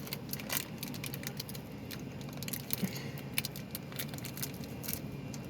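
Small plastic toy packaging being handled and torn open, with irregular crinkles and sharp clicks and light rattles of small plastic pieces.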